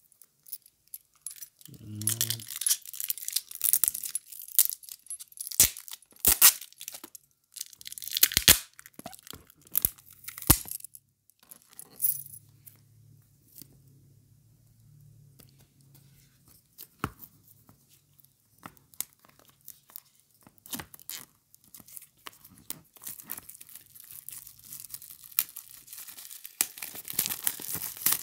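Clear plastic shrink-wrap on a smartphone's retail box being picked at, torn and peeled off, crinkling in scattered bursts with a few sharp clicks and taps, then denser crackling near the end.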